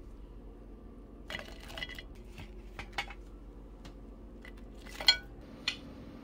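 A spatula scraping a metal baking sheet and clinking against a plate as roasted potatoes are scooped up and served. The clinks and scrapes are scattered, with the sharpest clink about five seconds in.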